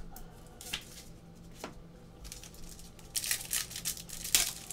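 Wrapper of a basketball trading card pack tearing and crinkling as it is ripped open: a couple of soft taps, then a quick run of sharp rustles about three seconds in and another near the end.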